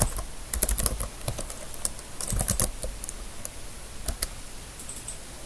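Typing on a computer keyboard: irregular key clicks in short runs, with pauses between them.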